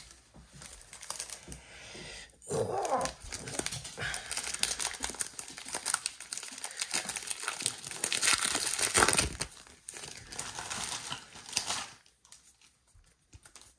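Basketball trading-card pack wrappers being torn open and crinkled: a dense crackling of many small clicks that starts about two and a half seconds in, is loudest near the end, and stops about twelve seconds in.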